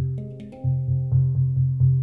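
Pantheon Steel Halo handpan in the Arabesque scale, played by hand: about seven quick strikes in two seconds, each note ringing on and overlapping the next over a deep low resonance.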